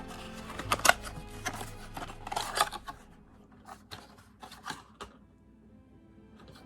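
Hands opening a video doorbell: crisp clicks and rustling, busiest in the first three seconds and then sparser taps. Soft background music plays underneath.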